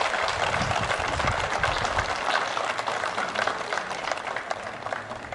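A large group of people applauding after an ipponjime closing clap: many hands clapping at once, the applause slowly fading toward the end.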